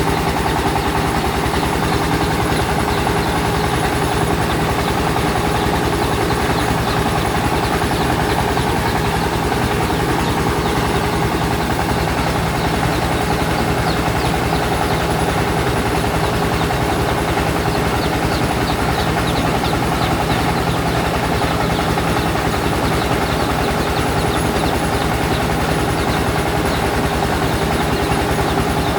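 Rice milling machine running steadily, an even mechanical drone with a constant hum that does not change.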